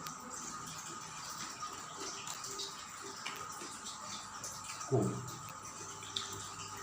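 Soft wet mouth noises and small scattered clicks of a person eating, over a faint steady high hum.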